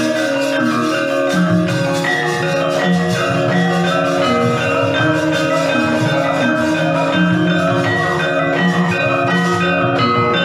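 Javanese gamelan music playing, with many ringing metallophone notes struck in a steady running pattern over lower sustained tones.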